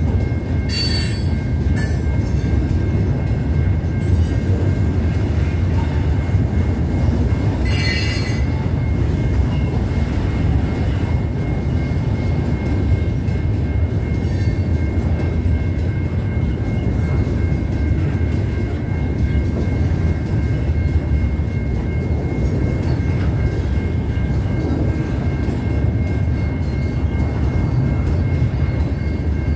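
Freight train of empty gondola cars rolling through a level crossing: a steady rumble of wheels on the rails. Short, high wheel squeals come about a second in, again at two seconds, and about eight seconds in. The crossing bell rings steadily over it.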